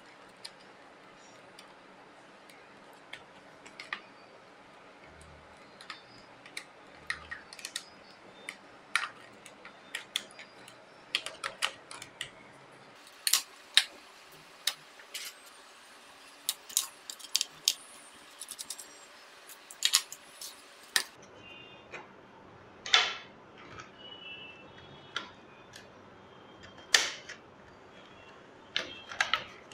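Irregular sharp plastic clicks and taps from a Dell Latitude E6410 laptop's casing and parts as they are pried with a plastic pry tool and handled during disassembly. The clicks come thickest in the middle, with a few louder knocks.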